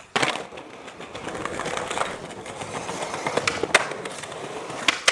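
Skateboard wheels rolling over paving slabs with a steady rumble, broken by several sharp clacks of the board popping and striking ledges, the loudest nearly four seconds in.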